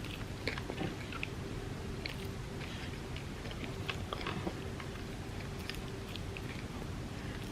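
Close-miked chewing and biting of soft-baked chocolate chip cookie cups layered with chocolate wafers: irregular, scattered crisp clicks and small crunches, over a steady low hum.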